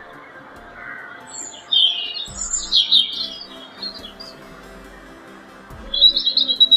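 Birds chirping in quick high bursts, loudest about two to three seconds in and again near the end, over background music with a steady low beat.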